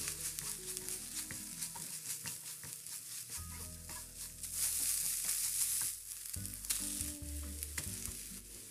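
Shredded chicken, scrambled egg and green onion sizzling in a nonstick frying pan, stirred and scraped around with a silicone spatula. The sizzle swells for a second or two about halfway through.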